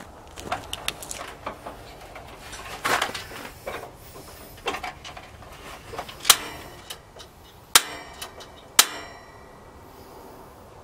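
Handling knocks and clicks as a Buddy propane heater is carried across a snow floor and set down, mixed with steps in snow. Three sharp metallic clicks come in the second half, the last one ringing briefly.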